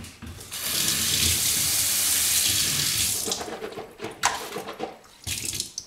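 Kitchen mixer tap running into a stainless-steel sink for about three seconds, then shut off. A few short knocks and a brief splash follow near the end.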